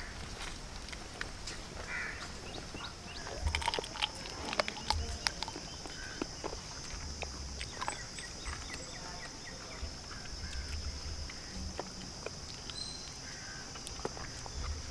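Short wet clicks and smacks of eating rice and chicken curry by hand off a banana leaf: fingers mixing the food, mouth chewing. A steady high insect buzz sets in a few seconds in, with a few short bird chirps near the end.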